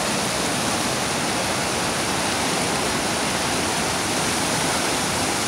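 Steady roar of Dhuandhar Falls on the Narmada River and the whitewater rapids running over the rocks below it.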